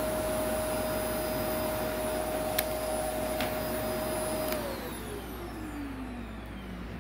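Shark Navigator upright vacuum running with a steady whine, with two sharp clicks in the middle. About two-thirds in it is switched off, and the motor's pitch falls steadily as it spins down.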